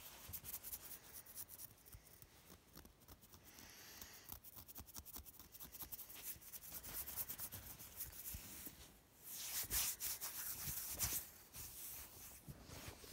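Close rubbing and light scratching with fine crackling ticks, growing louder and denser for a couple of seconds near the end.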